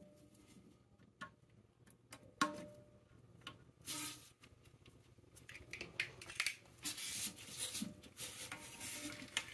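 Handling sounds inside a toilet tank: a few separate light clicks and knocks, one with a short ring, then about four seconds of rubbing and scraping as the refill hose of a new fill valve is pushed onto the overflow tube.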